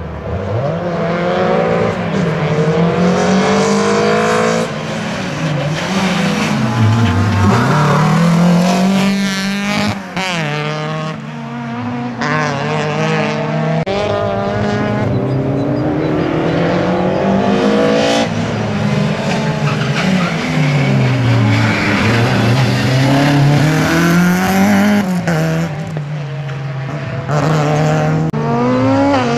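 A slalom race car's engine revving hard and lifting off over and over as it is driven through the cones, its pitch climbing and dropping every couple of seconds.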